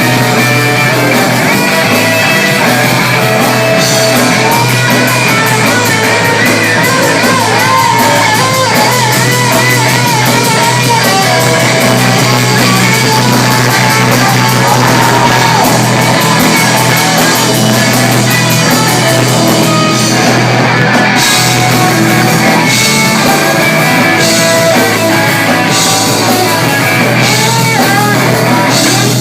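Punk rock band playing live and loud: electric guitar, bass and drums, with some sung or shouted vocal.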